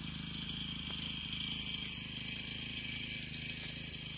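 Small engine running steadily at low speed, with a steady high-pitched drone above it.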